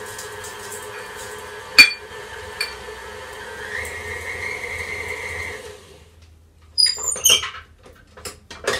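Electric stand mixer running steadily, beating thick sugar cookie dough as sprinkles are added, with one sharp knock about two seconds in and a higher whine from about four seconds. The motor winds down and stops about six seconds in, followed by clinks and scrapes of a spatula against the steel mixing bowl.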